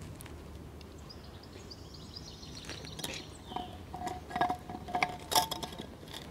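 Quiet outdoor background with faint bird chirps and short repeated calls, and a few light clicks about five seconds in.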